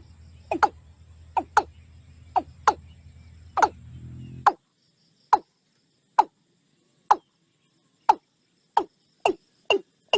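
Repeated short calls from an animal, each dropping quickly in pitch, about one or two a second and coming faster near the end.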